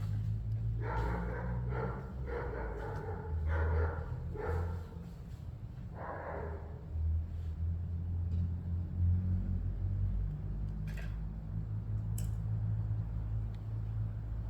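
A dog barking repeatedly, about half a dozen short barks in the first seven seconds, over a low steady rumble.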